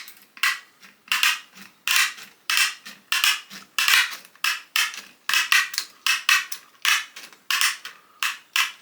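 Stainless steel mesh being cut by hand, a crisp metallic crunch with each cutting stroke, about two strokes a second.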